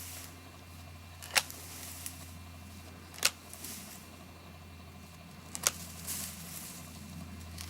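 Pruning cuts on a tree's branches: three sharp snips, about two seconds apart, of a pruning tool's blades closing, over a low steady hum.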